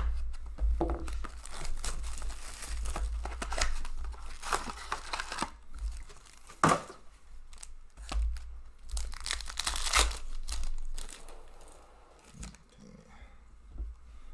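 2018-19 Upper Deck Ice hockey card box opened and its plastic-wrapped packs torn open, wrappers tearing and crinkling in bursts, with one sharp louder sound about halfway through. It settles to quieter handling near the end.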